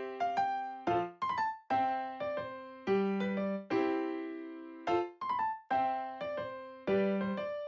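Background music: a light piano melody of plucked-sounding notes that each die away, repeating a short phrase about every four seconds.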